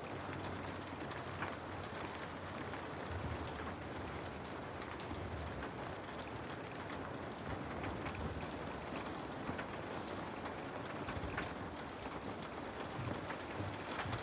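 Steady rain falling, an even hiss of water with scattered drop ticks, said to be rain on a window.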